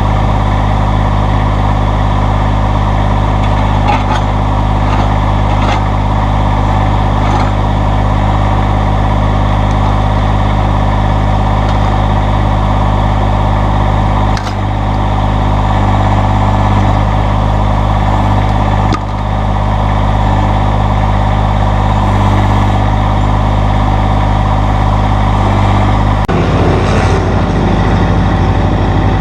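Massey Ferguson GC1720 subcompact tractor's diesel engine running steadily while the backhoe is worked. Its sound dips briefly twice about halfway through and changes near the end as the load shifts.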